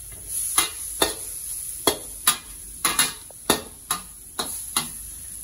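Long metal spatula scraping and clacking against a stainless steel wok, about two strokes a second, as chicken, vegetables and masala are stir-fried, over a steady frying sizzle.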